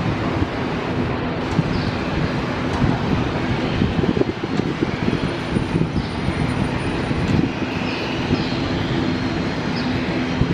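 Steady jet engine noise from a Ryanair Boeing 737-800 taxiing at low power: a continuous rumble with a held low hum. A few short high chirps come through on top.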